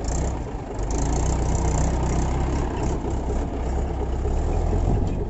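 Mahindra 575 DI tractor's 45 hp four-cylinder diesel engine running steadily as the tractor drives away across the field.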